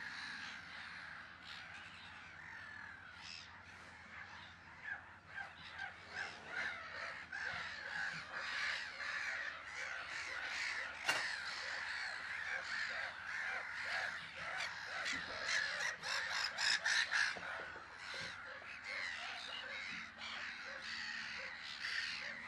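A colony of black-headed gulls calling, a disturbed colony: many harsh, overlapping calls. They thicken after the first few seconds and are loudest about two-thirds of the way through.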